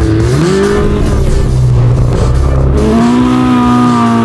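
Ferrari 488's twin-turbo V8 revving as the car pulls away, on its stock exhaust; the engine pitch climbs twice, about half a second in and again about three seconds in.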